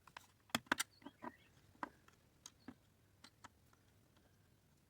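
About ten faint, irregular small clicks and ticks, mostly in the first three seconds, as a chainsaw carburettor's throttle linkage, held by a spring and a little wire, is worked loose by hand.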